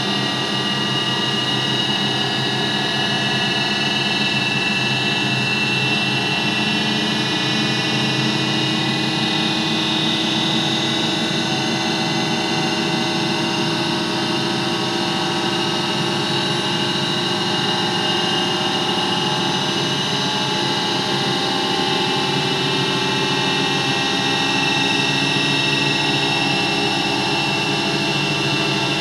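Studer A80 reel-to-reel tape recorder running, its tape transport turning the reels. The sound is picked up by contact microphones on the chassis and mixed with the room sound. It is a steady mechanical hum of motors and transport, with several held tones that drift slowly in pitch.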